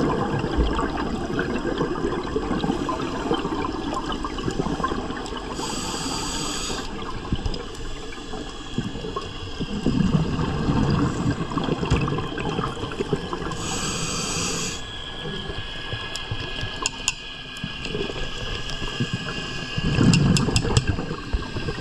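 Scuba regulator breathing underwater: two short hissing inhalations, about six and fourteen seconds in, and exhaled bubbles gurgling out in surges at the start, around ten seconds and around twenty seconds.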